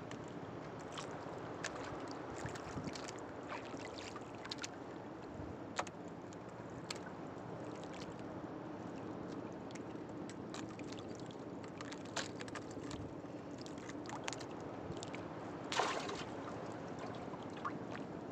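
Steady wash of water around a wooden boat, with scattered small clicks and taps from hands working a fishing hook and bait, and one brief louder rustle near the end.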